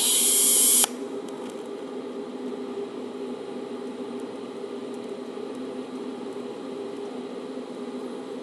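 TIG welding on thin steel: a loud hiss for just under a second as the arc is struck, cutting off sharply. Then a steady low hum as the DC arc burns, with filler wire fed in pulses by an automatic wire feeder.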